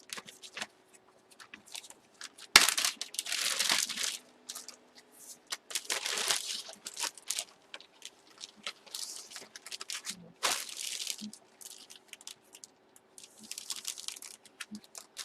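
Plastic card bag crinkling and rustling in spells as a trading card is handled and slipped into a new bag, with a sharp click about two and a half seconds in.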